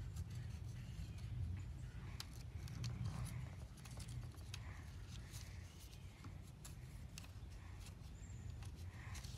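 A felt-tip marker scratching and a paper stencil rustling against a pumpkin as the stencil's outline is traced, heard as scattered small scrapes and clicks over a steady low rumble.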